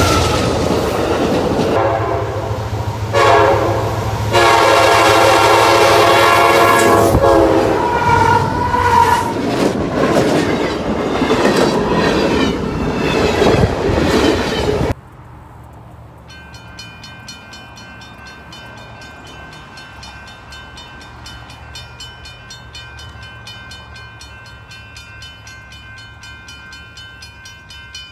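A train passing close by, with a rumble of wheels on rail and its air horn sounding in two chord blasts. About halfway through, the sound cuts abruptly to a much quieter steady background with a few thin high tones.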